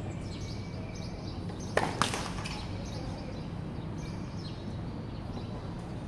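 Tennis ball on a hard court: two sharp knocks about a quarter second apart, about two seconds in, from ball and racket strikes during a rally.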